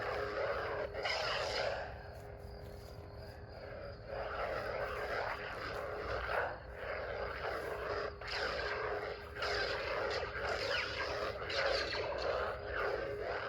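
Ignited Theory Sabers Soldier lightsaber's sound module humming steadily, with rushing swing sounds that swell and fade again and again as the blade is moved.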